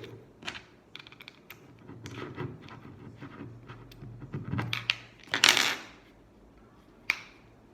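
Small plastic and metal parts of a mini chainsaw drill attachment being handled and fitted together by hand: scattered light clicks and knocks, a brief scrape about five and a half seconds in, and a sharp click near the end as the cover seats into place.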